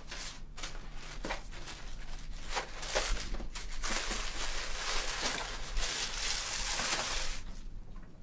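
Tissue paper rustling and crinkling as it is pulled out of a paper gift bag: scattered crackles at first, then a denser, continuous rustle from about four seconds in that stops shortly before the end.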